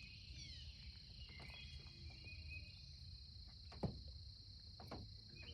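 Steady, high-pitched insect trilling, like a cricket chorus, with a few faint bird chirps and a single sharp click about four seconds in.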